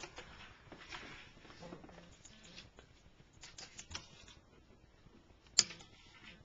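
A cat's claws and paws scrabbling and tapping against a painted wooden door as it jumps and swats, with one sharp knock near the end.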